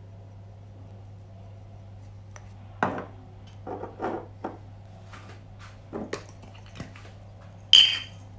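Spice jars being handled and set down on a granite worktop: a string of light knocks and clicks, then one sharp clink near the end.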